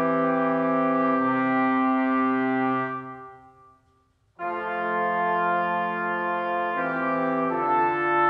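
Background music of slow, held chords. It fades out about three seconds in, and after a brief silence a new stretch of held chords starts abruptly.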